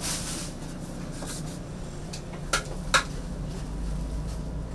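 Kitchen utensils clinking twice, sharply and about half a second apart, past the middle, over a steady low hum.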